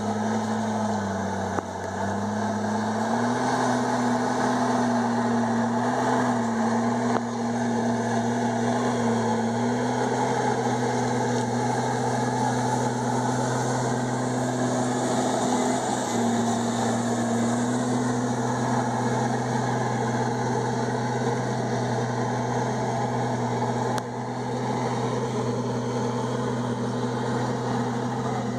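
Komatsu D51EX bulldozer's diesel engine running steadily at working revs, its pitch dipping briefly about a second in as it takes load and then recovering.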